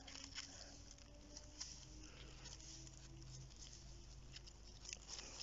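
Faint rustling and crackling of dry fallen leaves, with scattered small clicks, as hands handle mushrooms in the leaf litter.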